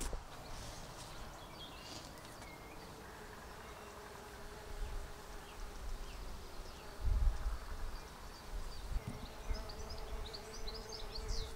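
A bee buzzing steadily in flight. There are low rumbling bumps about five and seven seconds in, and a quick run of high chirps near the end.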